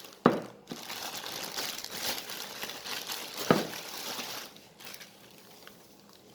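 Plastic cover crinkling and rustling as a subwoofer is unwrapped and lifted out of its packing, with two sharp knocks, one just after the start and one about three and a half seconds in; the rustling dies down near the end.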